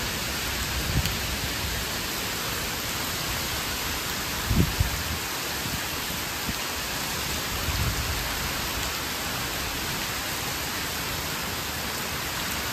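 Heavy rain: a steady hiss of a downpour falling on trees and a paved terrace, with a few brief low thumps, the strongest about a third of the way in.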